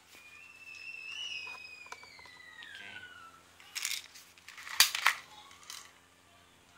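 A cluster of sharp plastic clacks about four to five seconds in, from a custom spring-powered airsoft Glock 17 pistol being cocked. Before that, a thin high tone slides slowly downward for about three seconds.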